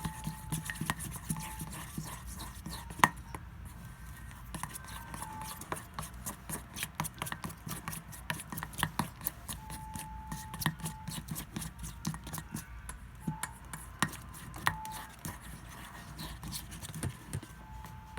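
White glue being stirred with a utensil in a container to mix in food colouring: a run of quick, irregular clicks and taps of the utensil against the container, with some scraping.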